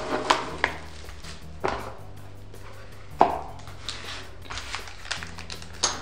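Plastic bubble wrap crinkling and crackling in irregular sharp bursts as it is pulled off and handled, over quiet background music.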